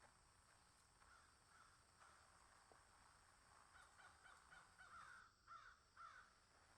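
Faint bird calls over near-silent room tone, a few short, louder calls near the end.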